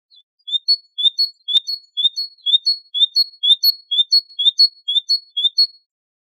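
Great tit singing: a two-note phrase, a lower note then a higher one, repeated about eleven times at roughly two phrases a second, then stopping. One faint click about a second and a half in.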